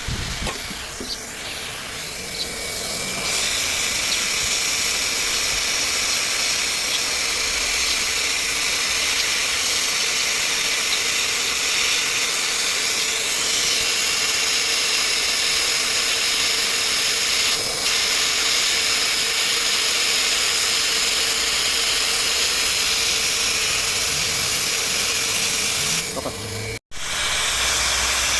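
Hot-air plastic welding gun blowing with a steady hiss and a faint steady hum, welding the two halves of a washing machine's plastic tub back together after a bearing and seal change. The hiss swells in about three seconds in and drops out for an instant near the end.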